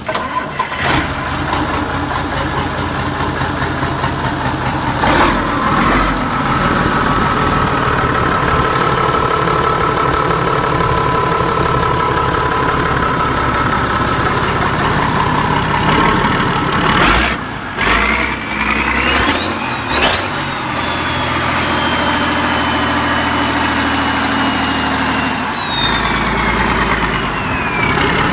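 Rebuilt marine diesel engine running steadily. About two-thirds of the way through it is revved, and a high whine climbs, holds, then falls away near the end.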